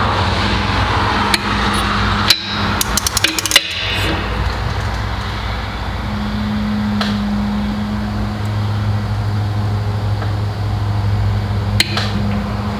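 A large ratcheting torque wrench, set to 25 ft-lb, tightening head bolts on an air compressor pump: sharp metallic clicks, with a quick run of ratchet ticks around three seconds in and single clicks later. A steady low hum runs underneath.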